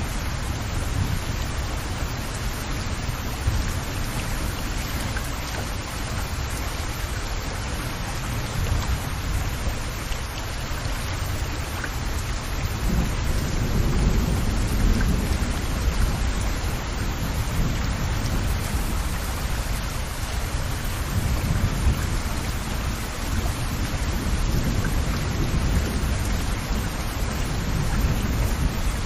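Steady rain falling, a continuous even hiss of drops on leaves and wet ground. Underneath it runs a deep low rumble that swells and fades several times.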